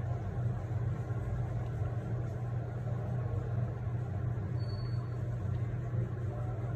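Steady low hum, with a short faint high tone about four and a half seconds in.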